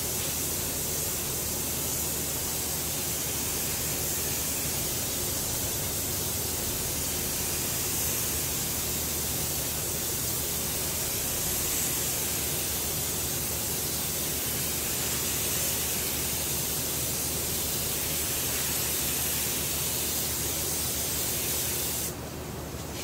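Air-fed gravity-cup paint spray gun hissing steadily as it sprays black base coat onto a masked bumper. The hiss cuts off sharply near the end when the trigger is released.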